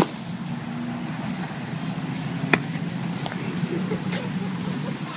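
Two sharp smacks of a baseball into a glove, about two and a half seconds apart; the first is the louder. A steady low hum runs underneath.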